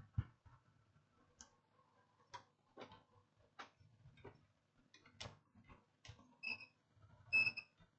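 Faint scattered clicks and taps of multimeter probes on a laptop motherboard, then a digital multimeter's continuity beeper sounds twice briefly near the end, during a check for a short circuit.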